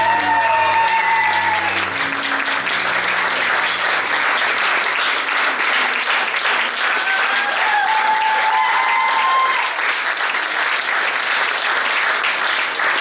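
A room full of guests applauding steadily, as the last notes of the dance music die away about two seconds in.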